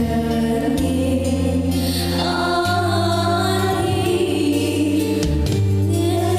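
Music with a group of voices singing over sustained chords, the chord underneath changing every couple of seconds.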